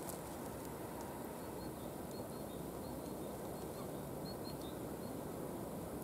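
Faint, distant birds calling: short, high chirps scattered irregularly, over a steady low background noise.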